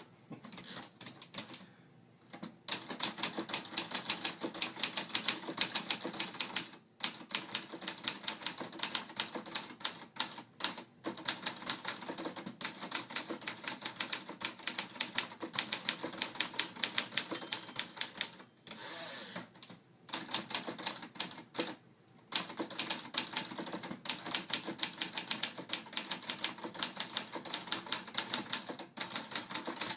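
1953 Remington Quiet-Riter manual portable typewriter being typed on: quick keystrokes, several a second, in runs of a few seconds broken by short pauses.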